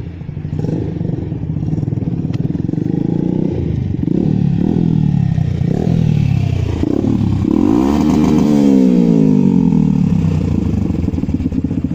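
2019 Suzuki Gixxer SF single-cylinder engine, heard through a wide chrome aftermarket exhaust tip, running and being revved in several short throttle blips, then one longer rev about eight seconds in that slowly falls back toward idle.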